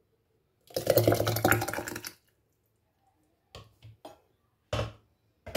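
Hot, thick tomato sauce poured from a cup through a plastic funnel into a glass jar, a wet splattering pour lasting about a second and a half. Then a few short knocks of kitchen utensils against the pot and jar.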